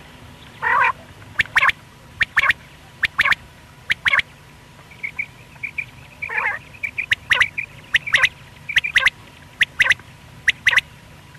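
Common quail calling: short, sharp notes, often in quick pairs, repeated about once a second. A few longer calls come in near the start and midway, and a run of softer chirps comes about five seconds in.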